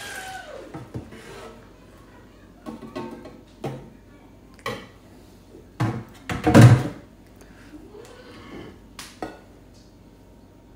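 Soapy water poured from a baking tray into a glass bowl, then a series of knocks and clatters as the tray and a brush are handled in a steel kitchen sink, the loudest about six and a half seconds in.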